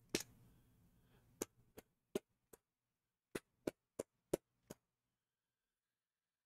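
Lamy Safari fountain pen tapped sharply over and over to flick black ink spatters onto the sketchbook page. There is one click at the very start, then nine quick taps in two runs of four and five, about three a second.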